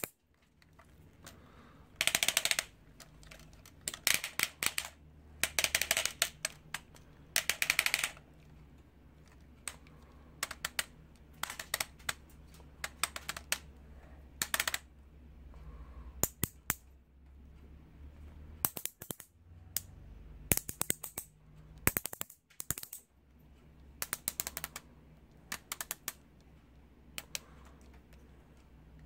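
Plastic joints of a Playmates Legendary Black Lion (Voltron) action figure clicking as its legs are bent and repositioned by hand. The clicks come in short runs of rapid clicks with pauses between.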